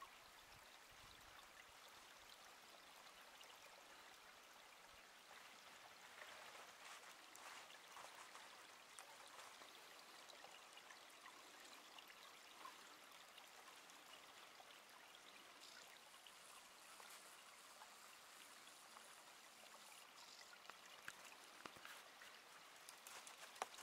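A small woodland stream flowing and trickling faintly.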